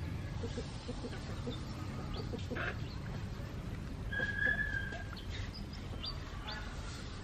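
Birds chirping, with a clear whistled note about four seconds in, over soft hen clucking and a steady low background rumble.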